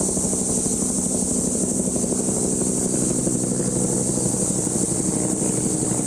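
Steady background drone: a low machine-like hum with a fine rapid flutter, under a constant high-pitched buzzing hiss.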